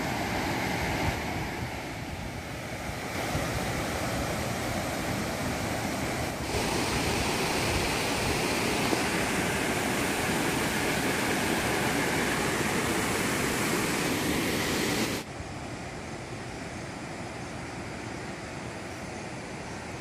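Steady rush of falling water from a waterfall in a rocky gorge, a continuous noisy roar. It gets louder in two steps, then drops suddenly to a fainter rush about three-quarters of the way through.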